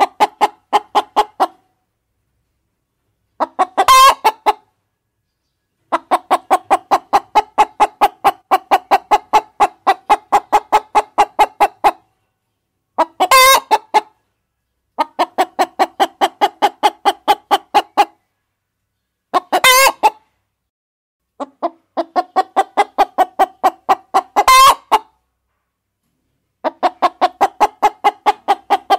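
Hens clucking in fast runs of about six clucks a second, each run lasting a few seconds with dead gaps between. Four short, louder squawking calls break in, about a second long and spaced five to six seconds apart.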